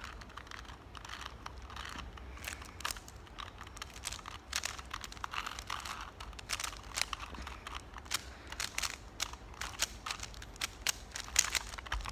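Rubik's cube being turned quickly during a speed solve: irregular rapid clicks and clacks of the plastic layers.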